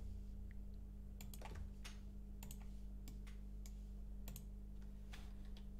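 Faint computer keyboard key presses and mouse clicks, about a dozen irregular taps, over a steady low hum.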